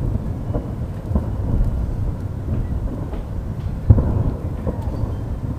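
Distant fireworks shells bursting: dull booms over a continuous low rumble, the loudest about four seconds in.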